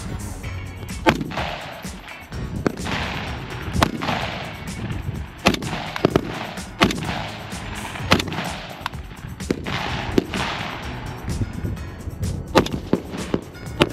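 Rifle shots, one about every one to two seconds, each followed by a trailing echo; near the end several shots come in quick succession.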